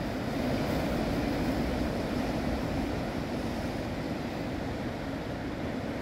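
Sea surf breaking and washing over a rocky shore, a steady low rush that swells slightly in the first couple of seconds.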